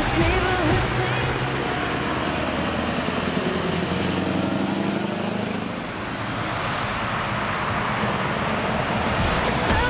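Scania R560 V8 truck engine with open exhaust pipes, pulling away under power and passing close by. Its note bends in pitch as it goes past, then it drives away.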